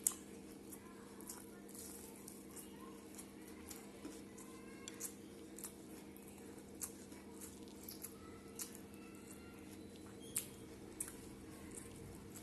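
A person eating rice and curry with the mouth close to the microphone: irregular soft smacks, squishes and small clicks of chewing and of fingers working the food. A steady low hum runs underneath.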